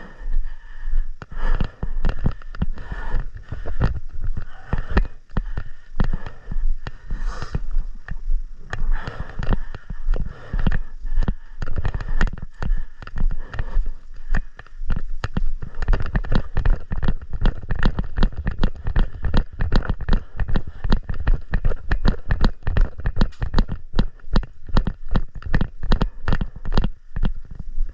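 Airsoft guns firing in a long string of sharp pops, coming several a second and thickest in the second half, over a low rumble.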